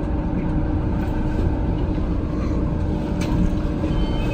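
Tama Toshi Monorail train standing at a station platform, a steady low rumble with a constant hum from its running onboard equipment. A single click sounds about three seconds in.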